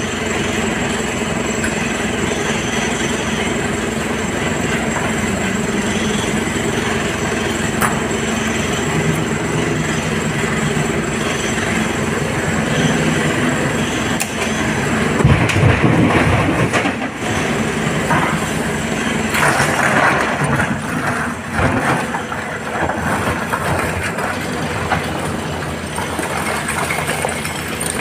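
SANY SY225 excavator's diesel engine running steadily under load with a constant hum. About halfway through comes a loud rumbling clatter of broken rock being dumped from the bucket into the steel body of a tipper truck.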